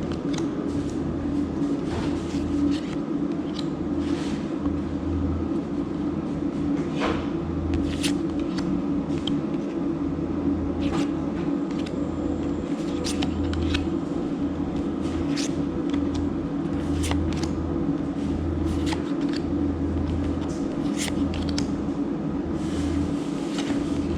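Magic: The Gathering cards being handled and flicked through one at a time, with short irregular clicks and slides of card stock, over a steady low hum.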